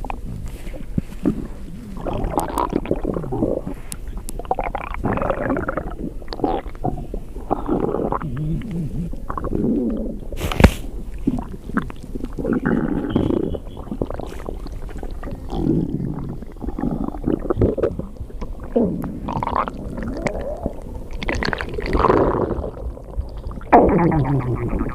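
Hungry stomach growling: continuous, irregular gurgles and rumbles that waver in pitch. A single sharp click comes about ten seconds in.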